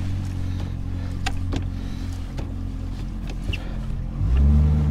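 Boat's outboard motor idling steadily, then about four seconds in the throttle opens and the engine note rises and gets louder as the boat moves off. A couple of light clicks midway.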